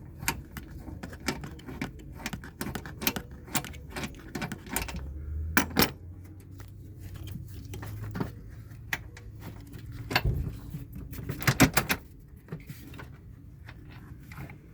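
Metallic clicking and clinking of a hand ratchet and tools working a bolt loose on a plastic washer fluid reservoir. The clicks come in irregular short runs, with a louder cluster near the end.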